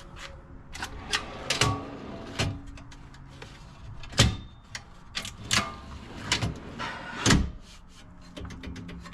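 Iruri dual cargo drawers sliding in and out on their runners, with rattling clicks, and two sharp knocks about four and seven seconds in as they shut.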